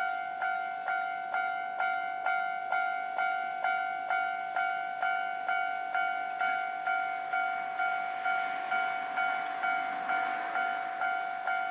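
Japanese level-crossing alarm bell ringing, a steady two-tone "kan-kan" struck about twice a second, warning that a train is coming. About eight seconds in, the rushing noise of a passing train swells under the bell and eases off near the end.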